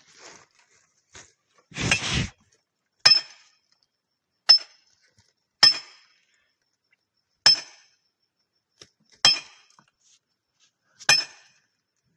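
A steel hand tool striking hard quartz rock: six sharp metallic clinks with a short ring, one every second and a half to two seconds. A brief rough, scraping noise comes about two seconds in.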